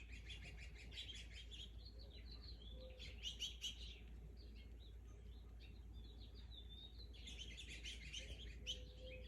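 Small birds chirping and twittering, many short high calls overlapping, busiest near the start, about three seconds in, and again from about seven to nine seconds, over a faint low hum.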